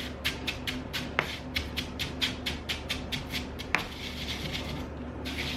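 A spoon scraping and pressing in a bowl in quick, even strokes, about five a second, with a couple of sharper clinks; the strokes stop about four seconds in and start again near the end. A steady low hum runs underneath.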